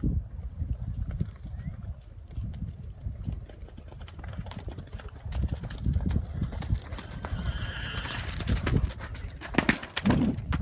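Hoofbeats of several horses trotting and galloping on muddy ground, with a horse's whinny about three-quarters of the way through and a loud burst of noise on the microphone near the end.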